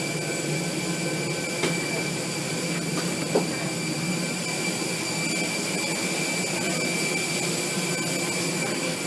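Steady ventilation hum and whine inside an Airbus A320 cabin, with two small clicks about one and a half and three and a half seconds in.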